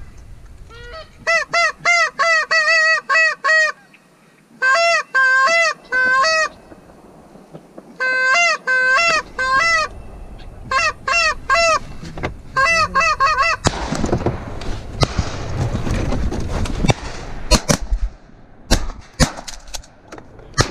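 Goose honking: several quick runs of short, loud, pitch-bending honks, then a rushing noise and a few sharp knocks near the end.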